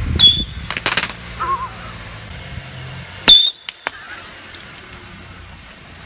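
Two sharp firecracker bangs about three seconds apart, the second the loudest, each followed by a brief high ringing, with a quick run of smaller cracks between them.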